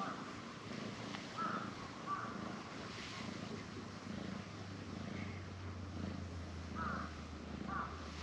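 Ginger tabby cat purring steadily while relaxed on a person's lap, the purr pulsing about one and a half times a second with its breathing.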